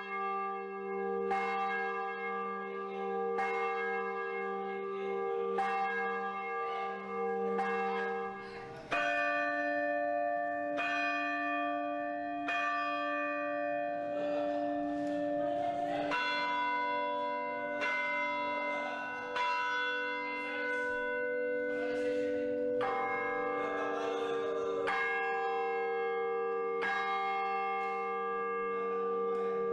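Church bells ringing, struck about once a second, each stroke ringing on under the next. The deep sustained tone changes to a higher one about nine seconds in and returns to the lower one later on.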